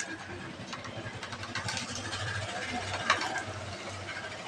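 Ducklings' bills clicking against a steel tray as they peck at raw meat: a few sharp taps, the strongest about three seconds in. Under it runs a steady low engine hum, like a vehicle idling.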